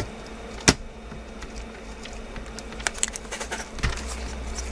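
Sharp clicks and taps of small tools and parts on an open laptop as its battery is removed. The loudest click comes under a second in and a cluster follows near the end, over a low steady hum.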